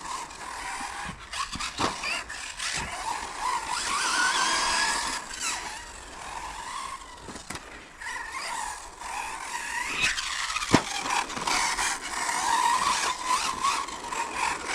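Brushless electric motor and drivetrain of a 1/10 Hobao Hyper 10 TT 2.0 RC car whining, the pitch rising and falling again and again as it accelerates and brakes around a carpet track. Occasional sharp knocks are heard along the way.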